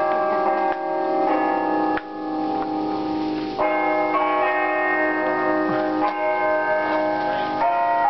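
Tower bells ringing, several pitches sounding together and ringing on, with fresh strikes every second or two.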